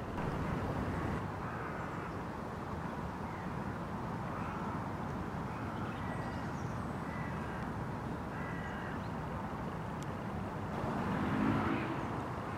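Riverside outdoor ambience: a steady rushing noise, with a few faint short bird calls scattered through it. A low hum swells briefly about eleven seconds in.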